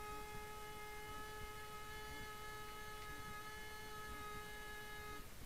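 A small hand-held wind instrument blown at the lips, holding one long steady note that stops about five seconds in.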